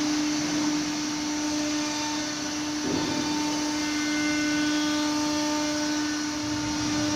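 CNC machining center running steadily: a constant, even whine with fainter higher tones over a steady hiss.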